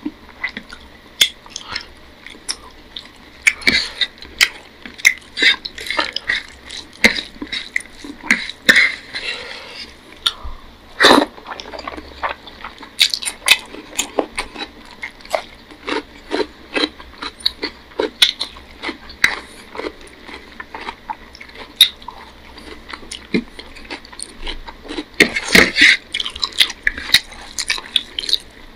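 Eating by hand: fingers mixing rice with egg curry on a plate and chewing, a steady run of short, irregular wet clicks and smacks.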